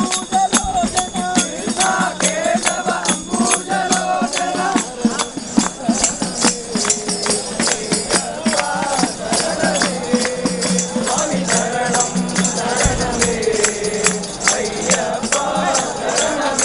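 A crowd of devotees sings an Ayyappa bhajan together in unison. A tambourine and other hand percussion with jingles keep a fast, steady beat under the voices.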